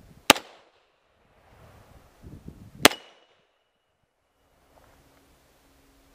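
9mm pistol shots fired one-handed, slowly: two shots about two and a half seconds apart and a third at the very end. A high ring from a struck steel target lingers for nearly two seconds after the second shot.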